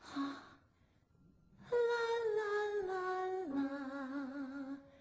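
A woman's voice humming a slow wordless melody with no accompaniment, stepping down in pitch and ending on a lower held note with vibrato; a short vocal sound comes just before it.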